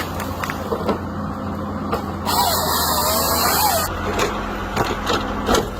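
Ponsse forestry harvester at work: its engine runs steadily under scattered knocks and clatter. About two seconds in, a loud hiss with a wavering whine rises over it for a second and a half, then stops.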